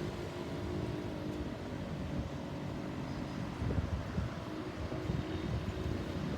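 Road vehicle engines running, a steady low rumble with a faint hum and no siren sounding.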